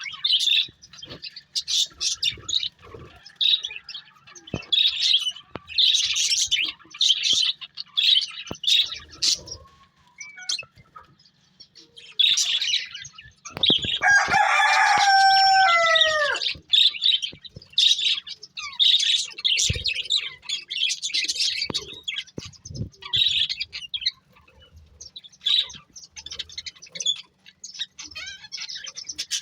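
Pet budgerigars chirping and chattering in a busy run of short high calls. About halfway through, a longer, lower call sounds for a couple of seconds and falls away at its end.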